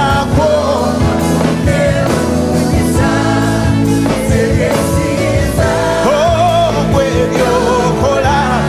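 Live gospel worship song sung in Luganda: voices carry a gliding melody over a band with a steady bass line and percussion.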